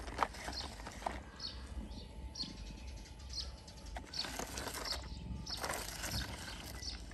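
Rustling and a few light clicks, with short high bird chirps about once a second in the background.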